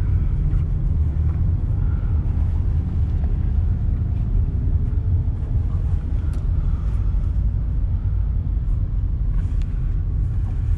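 Steady low engine rumble of a cross-river ferry boat.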